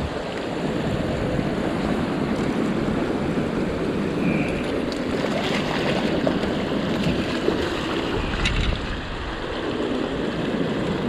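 Steady rush of river water, with wind buffeting the microphone.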